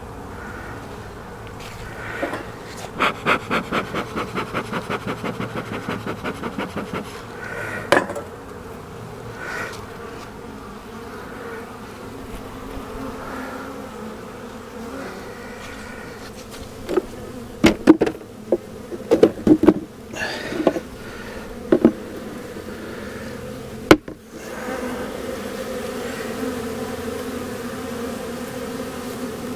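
A swarm of honeybees buzzing steadily around an open hive, the hum growing louder near the end. A quick run of even clicks, about five a second, comes a few seconds in, and scattered sharp knocks and clatter follow as the hive's parts are handled while it is closed up.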